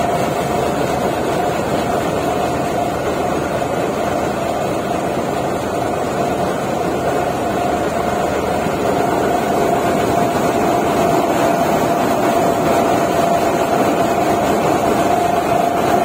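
HIND combine harvester running while it cuts and threshes rice: a steady engine and machinery drone with a constant high whine over it. It grows a little louder about halfway through as the machine turns toward the microphone.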